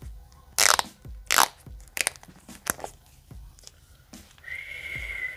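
Plastic packaging of a new smartphone rustling and crackling in several short bursts, with small handling clicks, as the phone is taken out and unwrapped. A thin, steady high tone starts near the end.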